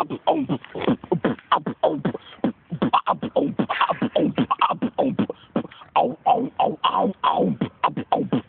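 A person beatboxing: a fast, unbroken run of sharp mouth-made drum strokes, several a second, mixed with pitched vocal sounds that slide downward in pitch.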